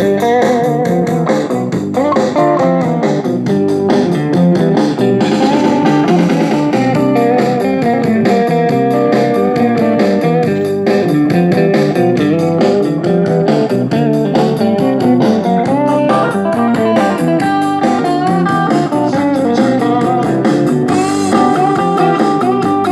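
Blues song in an instrumental break, an electric guitar playing lead lines over bass and a steady beat.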